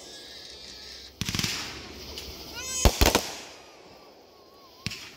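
Aerial fireworks bursting overhead: a rapid cluster of crackling reports about a second in, two loud bangs around three seconds, and a single sharp pop near the end.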